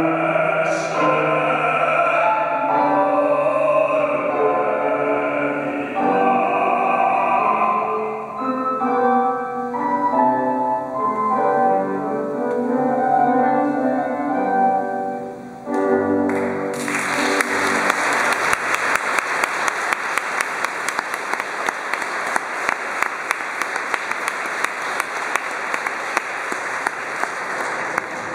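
A male opera singer sings an aria with instrumental accompaniment. The music stops about 16 seconds in, and an audience then applauds.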